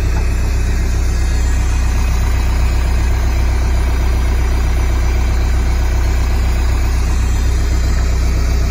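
Skid loader engine running steadily with a deep, even hum, supplying hydraulic oil to a cylinder machine's drive that is turning a bulldozer blade cylinder's barrel to unscrew its head gland.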